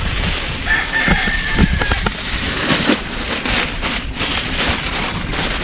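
Open wood cooking fire crackling and hissing under a pot, with scattered pops, a low rumble, and a brief thin whistle starting about a second in.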